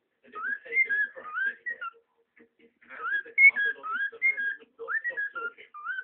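A male cockatiel singing: a run of whistled notes, mostly short rising glides, mixed with scratchy chatter. It sings in two phrases, with a short break about two seconds in.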